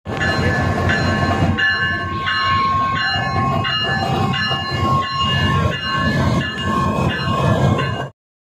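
Pakistan Railways GEU-40 diesel locomotive heading a freight train: a loud low rumble with several high tones that cut in and out every half second or so. The sound cuts off suddenly near the end.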